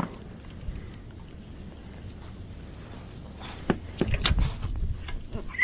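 Low steady rumble of wind on the microphone, with a few sharp clicks and knocks from handling the spinning rod and reel, about three and a half to four and a half seconds in.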